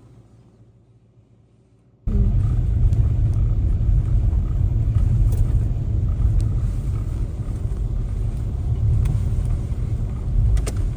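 A steady low rumble that starts suddenly about two seconds in, after near silence, with a few faint clicks over it.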